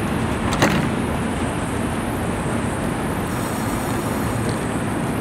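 Kawasaki R160B subway train at the platform: its doors shut with a sharp knock about half a second in, over a steady rumble of the train's equipment; faint high whining tones set in after about three seconds as the train begins to pull out.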